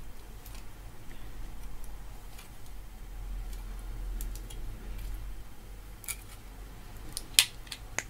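Cutters snipping and clicking on the plastic housing of a photocell light sensor as it is taken apart: scattered small clicks, with one sharp snap about seven seconds in.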